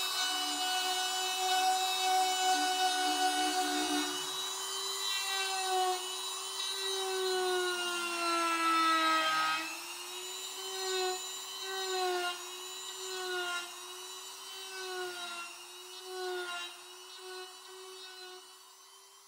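Dremel rotary tool with a Kutzall original coarse-grit burr carving a spiral twist into cherry wood: a high motor whine. It holds steady at first, then its pitch sags under load each time the burr bites in, first in one long drop and then in short dips about once a second. It tapers off near the end.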